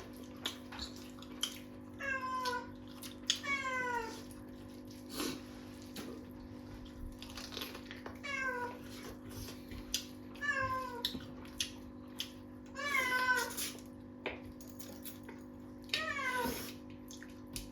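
A house cat meowing repeatedly, about six meows spread over the stretch, each one falling in pitch. A steady low hum and small clicks run underneath.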